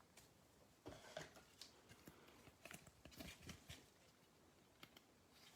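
Near silence with faint rustling and small clicks from trading cards being handled, as a card pack is opened and the cards are flipped through.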